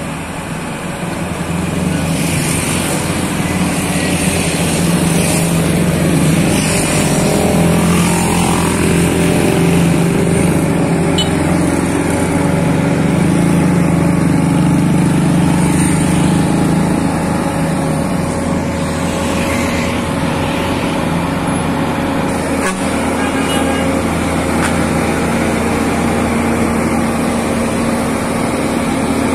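Volvo FM12 truck's 12-litre straight-six diesel running steadily under heavy load, hauling a roughly 98-tonne transformer on a lowbed trailer. It grows louder over the first couple of seconds and eases a little after about seventeen seconds.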